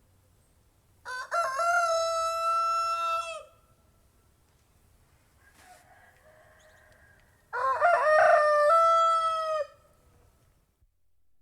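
Rooster crowing twice, each crow a long cock-a-doodle-doo held for about two seconds, the first starting about a second in and the second about seven and a half seconds in.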